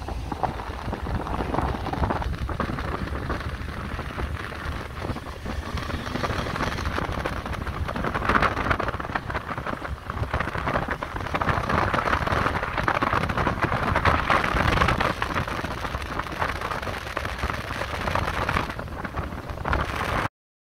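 Wind rushing and buffeting on the microphone of a moving Honda CB1300 motorcycle, with the bike's engine and tyre noise underneath. It cuts off abruptly near the end.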